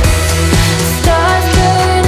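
Background music with a steady beat of about two strokes a second and a gliding melody line.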